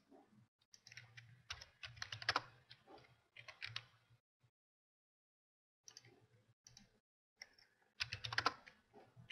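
Computer keyboard keystrokes, tapped in irregular clusters with a pause of about a second and a half in the middle.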